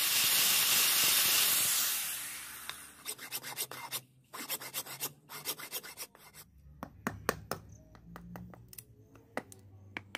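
An angle grinder runs against steel with a loud hiss for about two seconds, then fades out. A hand file then rasps in quick strokes across a steel sword blade cut from a motorcycle brake disc; the strokes come more sparsely toward the end.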